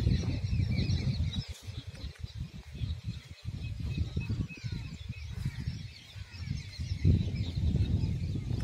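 Wind buffeting the microphone in uneven gusts, strongest at the start and again about seven seconds in, with many small birds chirping faintly in the background.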